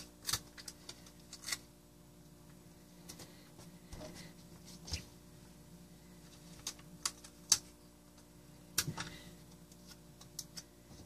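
Scattered soft clicks and crinkles of clear Scotch tape and a thin plastic parachute being handled and pressed down as a shroud line is taped on, at irregular moments, over a faint steady hum.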